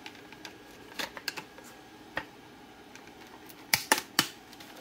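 Scattered sharp plastic clicks as a thin metal pry tool works around the seam of a Dyson DC58 handheld vacuum's end cap, popping its clips loose. The loudest clicks come in a cluster between three and four seconds in.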